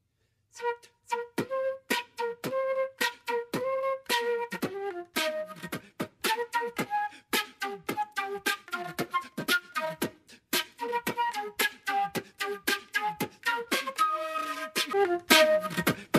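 Beatbox flute: a concert flute played while beatboxing into it, short melody notes cut through by fast, sharp percussive clicks and thumps in a steady rhythm.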